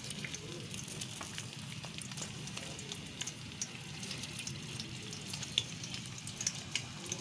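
Chopped onion frying in hot oil in a metal pot: a steady sizzle with frequent small crackles and pops.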